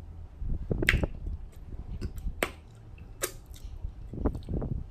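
Close-up mouth sounds of someone eating sauce-covered shrimp: several sharp, wet lip smacks and chewing clicks spaced irregularly, roughly one a second.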